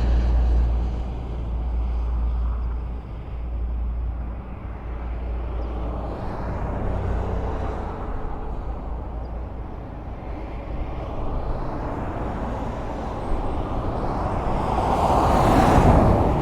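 Highway traffic: a steady rumble of passing vehicles and tyre noise, with one vehicle passing close near the end, its sound swelling and then falling away.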